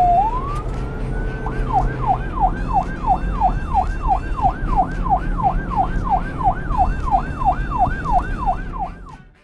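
Emergency vehicle siren: a rising wail, then from about a second and a half in a fast yelp sweeping up and down about three times a second, over a low engine rumble. It cuts off near the end.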